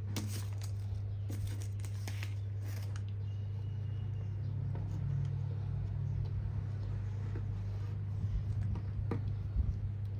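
Small plastic building bricks clicking as they are handled and pressed together, a few scattered clicks in the first three seconds and another about nine seconds in, over a steady low hum.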